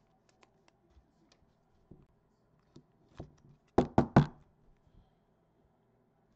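Three quick knocks in a row a little under four seconds in, from a trading card being handled against a tabletop, with faint ticks and rustles of handling around them.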